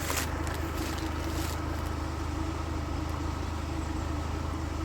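Steady low engine hum of an idling engine, with a brief hiss about a second in.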